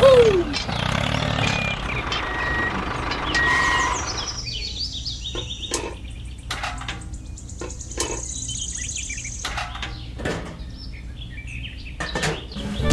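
An engine running for the first few seconds, then birds chirping, with scattered light clicks and taps as a small bucket of sand is handled.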